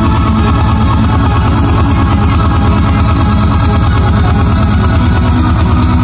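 Loud trance music played over a festival sound system, its bass pulsing rapidly and dominating the mix.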